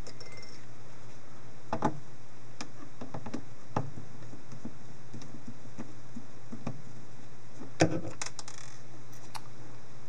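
Scattered small clicks and taps of a screwdriver and tiny metal screws as the screws holding a laptop hard drive in its caddy are backed out, with a sharper cluster of clicks about eight seconds in, over a steady low hum.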